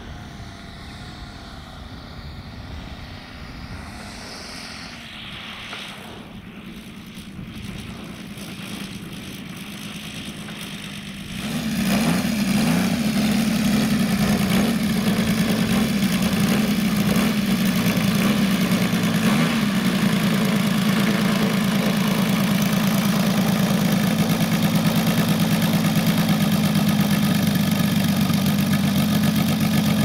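Saito 60cc three-cylinder four-stroke radial engine of a 1/5-scale Westland Lysander RC model, heard at a distance as the model flies its approach. Partway through it cuts to the engine loud and close, running steadily at idle with the propeller turning.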